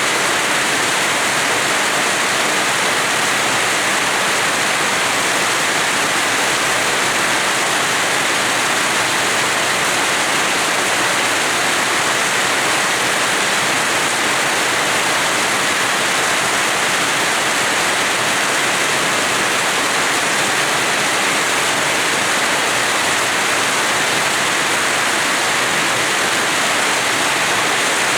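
Rain falling steadily: an even, continuous hiss with no separate drops, gusts or thunder standing out.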